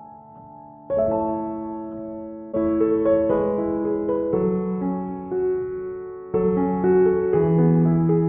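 Background music: slow electric piano chords, struck afresh every few seconds and left to ring.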